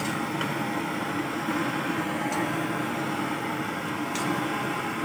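A metal ladle stirring chicken in an aluminium wok, giving a few light clinks against the pan, over a steady background hum and hiss.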